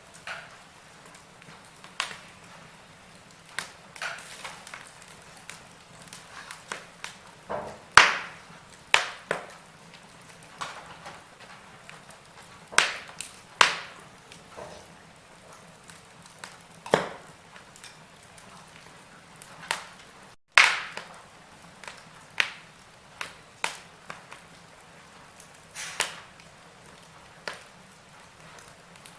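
Wood fire in a fireplace crackling: irregular sharp pops and snaps, one every second or two, some much louder than others, over a faint steady hiss.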